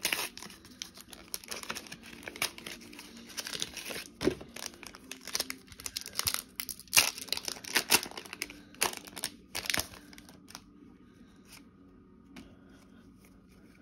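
Foil Pokémon booster pack wrapper crinkling and tearing open in the hands, a busy run of sharp crackles that dies down about ten seconds in.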